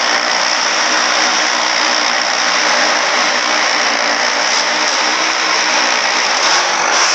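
Motorcycle engine held at steady high revs as it is ridden around the wooden wall of a wall-of-death barrel.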